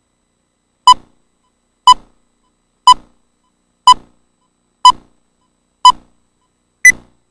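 Film-leader countdown beeps: seven short electronic tone pips, one a second. The first six are at one pitch and the last is higher.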